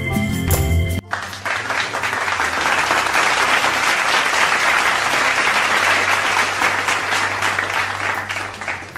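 Background music stops abruptly about a second in. Applause follows, a dense patter of many hands clapping that fades near the end.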